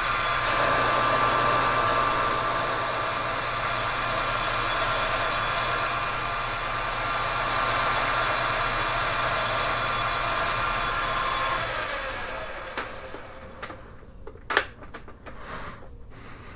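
South Bend metal lathe running steadily, taking a turning cut on a shaft with about 50-thousandths cuts. It winds down and stops about three-quarters of the way through, with a couple of sharp clicks as it is shut off.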